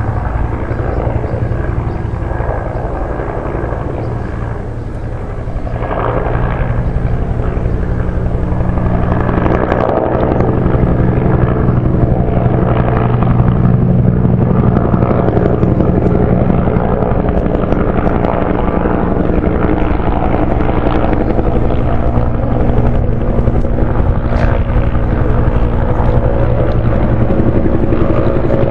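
Agusta-Bell AB 212 helicopter flying overhead: the steady beat of its two-bladed main rotor with its twin turboshaft engines, growing louder about six seconds in and staying loud.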